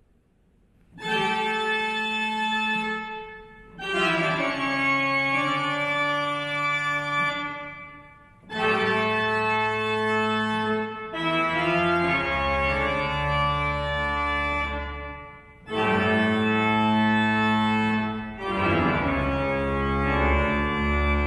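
Church pipe organ playing a slow piece in sustained chords, phrase after phrase with brief breaks between them; deep pedal bass notes join about twelve seconds in.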